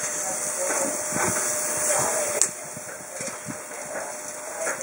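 Scotch fillet steaks sizzling on a hot barbecue grill plate as they are turned with metal tongs, with light clicks of the tongs and one sharp clink a little over two seconds in. The sizzle eases after that clink.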